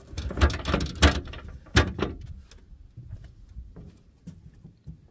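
A run of sharp knocks and clunks, several in the first two seconds, then fainter scattered ticks.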